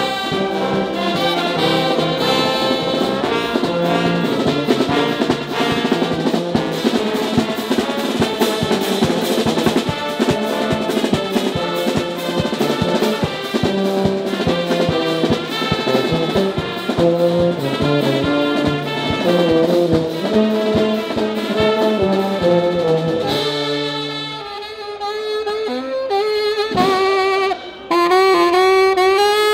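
Carnival brass band of trumpets, clarinets and saxophones playing a lively tune together over a steady beat. About 23 seconds in the full band drops away and near the end a single saxophone carries the melody, with a few abrupt breaks.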